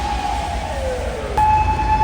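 Emergency vehicle siren: a steady high wail that slides down in pitch, then snaps back up to the high tone, louder, about two-thirds of the way through.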